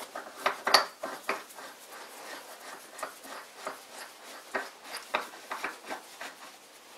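Steel screw-on drill chuck arbor being spun by hand onto a lathe's threaded spindle nose: irregular light metallic clicks and scraping of the threads, with a cluster of louder clicks just under a second in.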